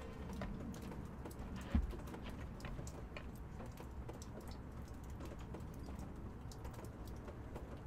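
Faint, scattered ticks and taps from hens settling on a wooden roost in the coop, with one soft thump nearly two seconds in.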